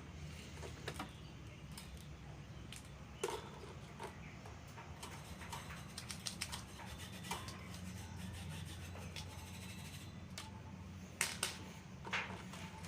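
Scattered clicks, scrapes and rubbing from a table fan being handled after its bushes were replaced, over a steady low hum. The sharpest clicks come about three seconds in and near the end.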